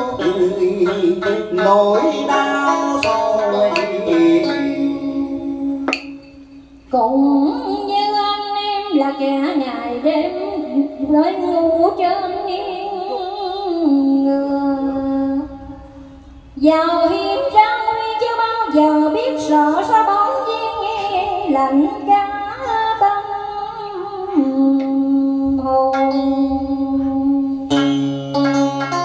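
Cải lương accompaniment: guitar and đàn sến playing a passage of bent, wavering plucked notes, pausing briefly twice.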